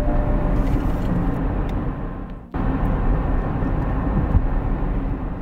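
Steady low rumble of a moving vehicle or road traffic, cut off abruptly about two and a half seconds in and then resuming.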